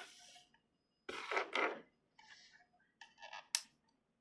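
Handling of a plastic action figure as its joints are moved: a brief rustle, then a few small clicks, the sharpest about three and a half seconds in.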